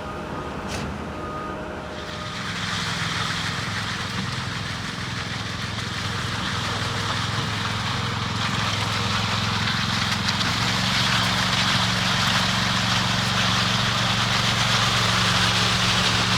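Engine of heavy machinery running steadily, with a broad hiss joining about two and a half seconds in and the engine note stepping up about ten seconds in; the sound slowly grows louder.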